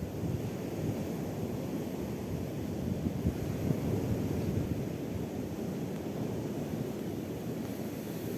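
Wind buffeting the microphone: a steady, low, gusting rumble.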